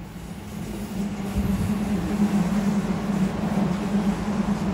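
Keihan electric train running along an elevated concrete viaduct, its rumble growing louder about a second in and then holding steady with a low hum.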